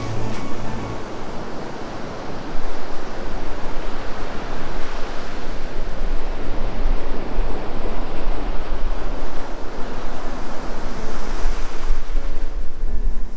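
Sea surf washing on the shore, with wind rumbling on the microphone; the surf gets louder a couple of seconds in. Background music fades out about a second in and comes back near the end.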